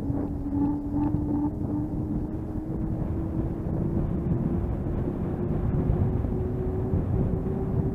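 Wind rushing over the microphone and road rumble while moving downhill on asphalt, with a steady hum that slowly rises in pitch as speed builds.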